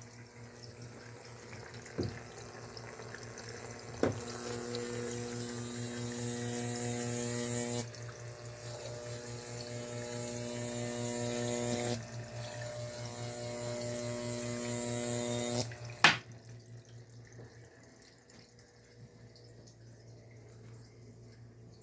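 A 3-foot Jacob's ladder's high-voltage arc running: a buzzing hum under a crackling hiss that swells as the arc climbs the rods, breaks off and restarts about every four seconds, three climbs in all. Sharp cracks about two and four seconds in as the spark catches, and a loudest crack about sixteen seconds in, after which the arc stops and only a faint hum remains.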